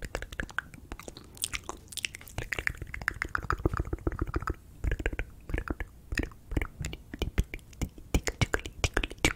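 ASMR mouth sounds made right up against a microphone: a quick, irregular run of wet tongue and lip clicks, pops and smacks.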